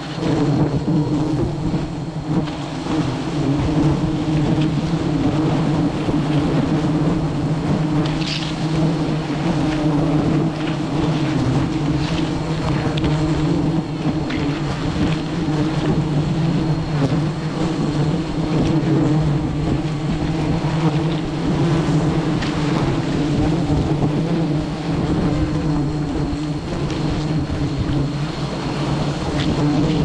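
A dense swarm of wild honeybees buzzing in a steady, unbroken drone, as colonies are disturbed during the honey harvest.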